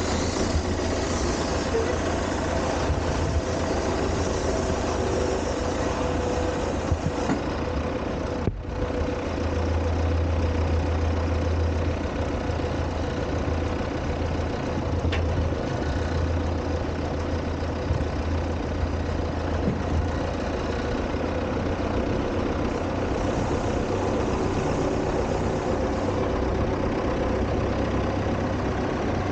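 Tractor diesel engine running steadily at a low, even pitch, close to the cab, with a brief dropout about eight seconds in.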